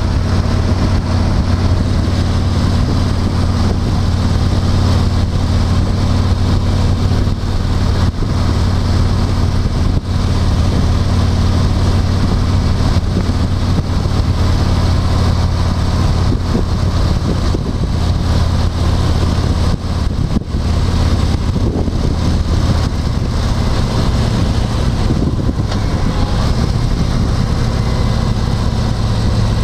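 Steady engine and road noise inside a moving car's cabin, with a constant low drone.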